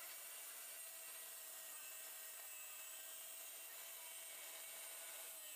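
Faint steady background hiss with a faint steady hum; no distinct tool sounds.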